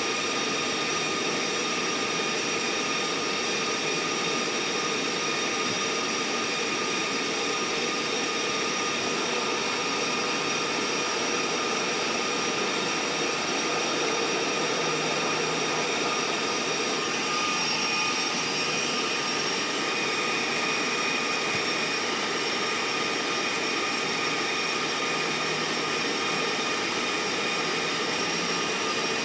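Running noise of the Amtrak California Zephyr passenger train heard from on board, sped up to 2.5 times normal speed: a steady whooshing hiss with several steady high whining tones over it.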